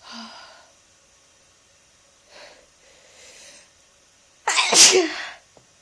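One loud, wet sneeze from a person with a heavy head cold, about four and a half seconds in. It follows three softer, short sounds as the sneeze builds.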